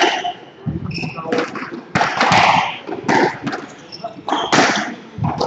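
Squash rally: the ball cracking off rackets and the court walls about once a second, with short high squeaks of shoes on the wooden court floor.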